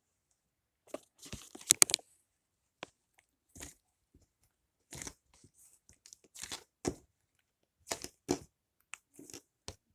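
Fluffy slime being worked by hand into a slime swirl, giving short, irregular sticky crackles and tearing sounds with silent gaps between them.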